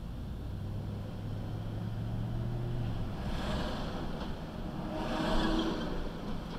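Vehicle engine heard from inside the cab as it drives off through traffic: a steady low hum, then a louder rush of engine and road noise from about three seconds in as it gets under way.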